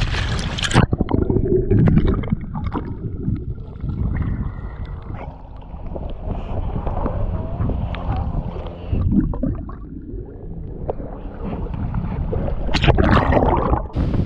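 Lake water splashing and sloshing against a waterproof action camera held at the surface, muffled and gurgling whenever it dips. A swimmer and a swimming dog are splashing close by. There is a loud splash at the start and another near the end.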